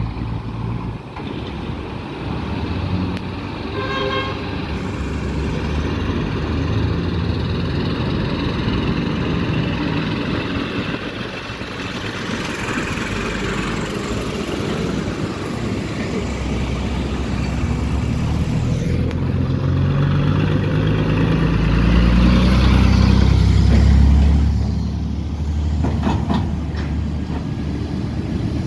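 Heavy diesel trucks passing on a city road, engines running over steady tyre and traffic noise, with a short horn toot about four seconds in. Near the end a deep truck engine rumble rises in pitch and becomes the loudest sound, then fades.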